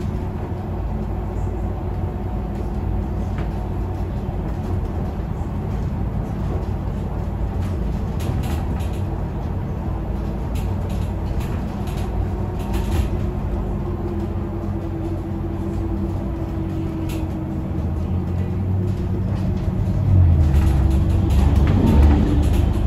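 Iveco Urbanway 18 Mild Hybrid articulated bus under way, heard from inside: a steady low drivetrain rumble with a drawn-out whine that sinks slightly in pitch around the middle. The rumble grows louder near the end as the bus pulls harder.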